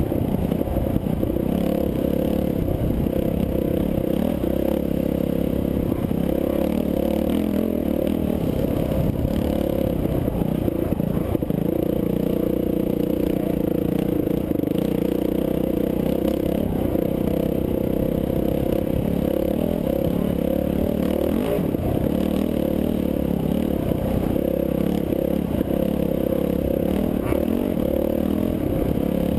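Off-road dirt bike engine running under way on the trail, a steady drone whose revs rise and fall a little throughout.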